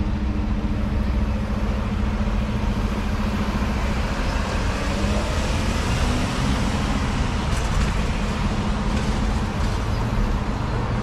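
Road traffic moving again over a railroad level crossing: a van and cars drive across close by, over a steady low hum.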